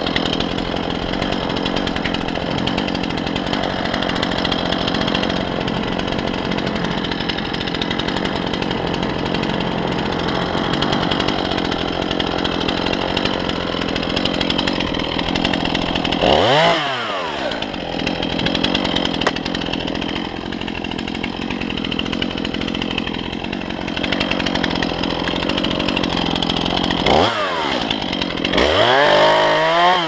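Two-stroke chainsaw running at high revs under load, cutting wood. About halfway through and twice near the end the throttle is let off, so the engine note drops, then it revs back up.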